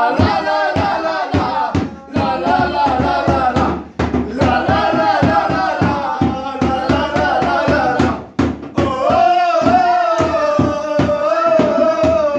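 Several voices sing a chant together over a hand drum beating a steady, quick rhythm, about four to five strokes a second. The drumming and singing break off briefly a few times.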